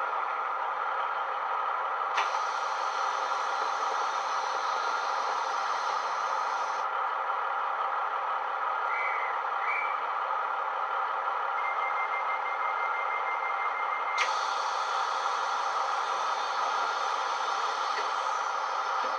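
Digital sound decoder playing a Class 150 Sprinter DMU's diesel engine idling, heard through the model's small speakers: a steady engine hum. A click comes about two seconds in, and a short run of rapid high beeps a little past the middle.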